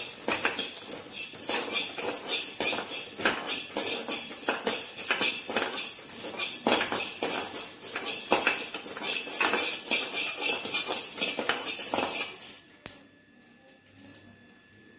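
Steel spoon scraping and stirring coriander seeds in a dry aluminium kadai: a rapid run of scrapes and clinks with the seeds rattling against the pan. The seeds are being dry-roasted without oil. The stirring stops about twelve seconds in.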